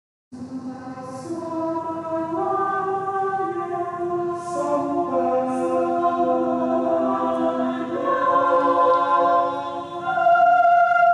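Church youth choir singing a hymn in sustained, slow-moving chords, coming in just after a brief silence and growing louder about ten seconds in.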